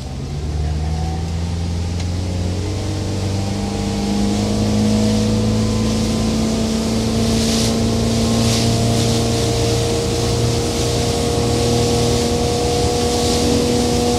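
A 1983 Sunrunner cruiser's engine is throttled up while the boat climbs onto plane. It grows louder and rises in pitch over the first few seconds, then settles into a steady run. Water rushes and splashes against the hull, with a few louder splashes about halfway through.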